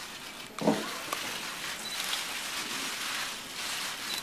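Steady hiss of background room noise, with a single thump about two-thirds of a second in and two brief high beeps later on.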